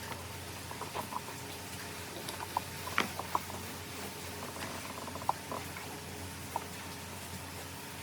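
Scattered light taps and clicks over a steady low hum, the sharpest about three seconds in.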